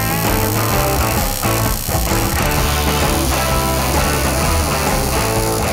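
Background rock music with guitar and a steady bass line.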